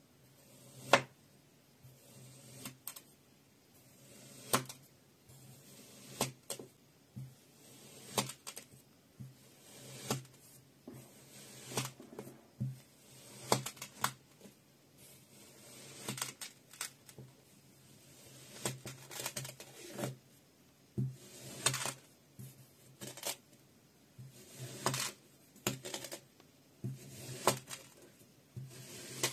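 A knife blade slicing down through a slab of kinetic sand, one cut at a time. Each cut gives a short, sharp click, about one every one and a half to two seconds.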